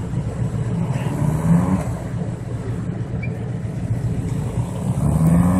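Engine of a Honda Civic converted into an off-road buggy, running as it drives, revving up briefly about a second and a half in and again near the end.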